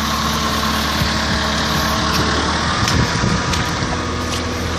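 A vehicle engine running steadily at idle, with a few faint clicks over it.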